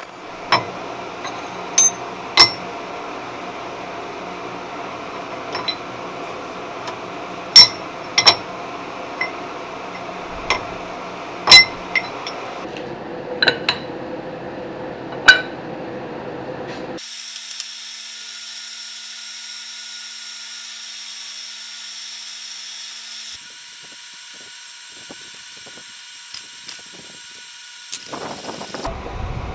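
Sharp metal clinks and taps as steel jaw plates are handled and set against a cast-iron vise, over a steady machine hum. After about 17 seconds the clinks stop and a different, higher steady machine noise carries on.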